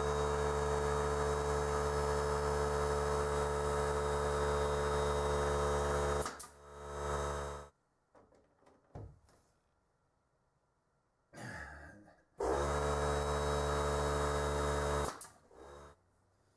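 Air compressor motor running with a steady hum, cutting off about six seconds in with a short hiss of released air, then starting again for about three seconds near the end.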